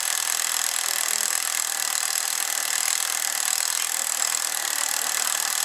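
Steady, even hiss with no rhythm or knocks, strongest in the high range, with faint voices under it.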